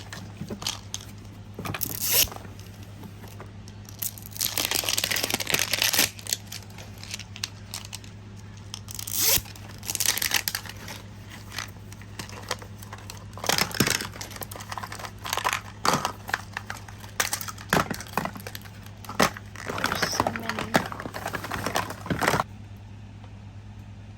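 Plastic and cardboard packaging being torn and crinkled by hand in irregular bursts, with the longest rustle about four seconds in.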